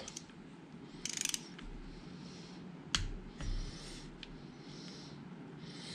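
Torque wrench ratcheting in a quick run of clicks about a second in, then one sharp click about three seconds in as the click-type wrench breaks at its 15 ft-lb setting on a water pump cover bolt, followed by a softer knock.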